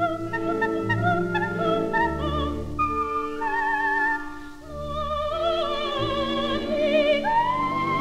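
Coloratura soprano singing with orchestra on a 1934 78 rpm record: quick runs of high notes with vibrato over sustained orchestral chords, a brief lull about halfway, then a rising slide near the end into a long held high note.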